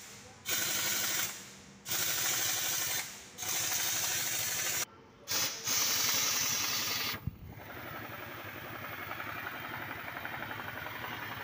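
A series of loud, stop-start bursts of pressurised hissing, each a second or so long, with short gaps between. A steadier, quieter hiss of workshop noise follows.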